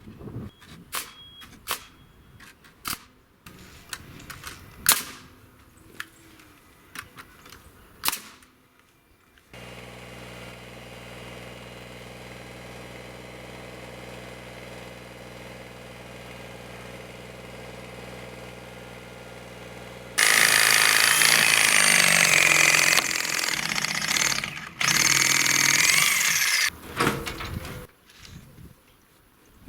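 Scattered knocks and clicks, then a small diesel tractor engine running at a steady idle for about ten seconds, then a much louder, harsh stretch with wavering whines lasting several seconds.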